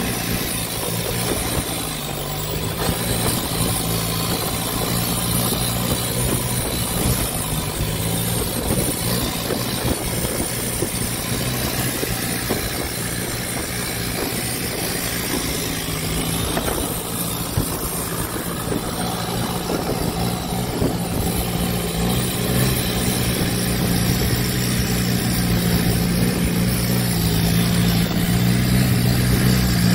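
Small boat's engine running steadily under way, a low hum over the rush of water and wind. It grows slightly louder near the end.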